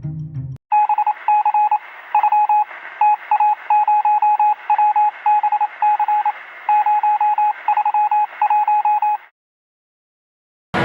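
Electronic beep tone pulsing on and off in an irregular pattern of short and longer beeps for about eight seconds, with a thin, telephone-like sound. Music cuts off just before the beeping starts.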